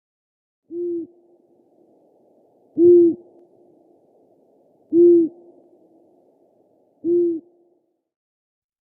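An animal giving four low, single-note hoots, spaced about two seconds apart, each brief with a faint trailing echo.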